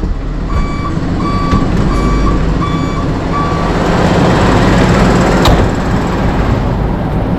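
A heavy truck's reversing alarm beeps five times at an even pace, about one and a half beeps a second, over a truck engine running steadily. A single sharp click comes about five and a half seconds in.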